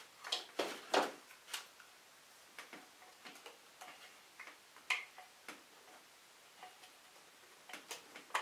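Scattered light clicks and knocks of an Interskol angle grinder being handled, its housing and gear head turned and shifted in the hands. The clicks come at uneven intervals, with the loudest cluster about a second in and another near the end.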